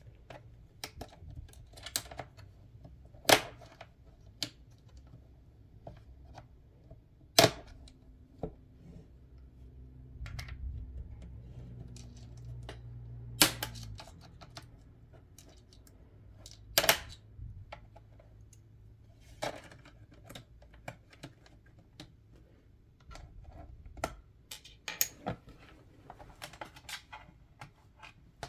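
A plastic pry tool works around the bottom case of an MSI GF63 Thin laptop, giving sharp, irregular clicks and snaps as the case's plastic clips let go one by one. There is low handling noise in between.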